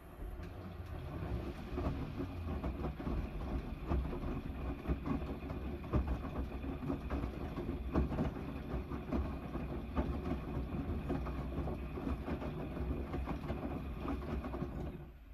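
Gorenje WNEI front-loading washing machine tumbling its drum in the main wash of a 90 °C cotton cycle. The drum motor starts and winds up over the first couple of seconds, then runs steadily while soapy water and laundry slosh and knock inside the drum, and it stops near the end.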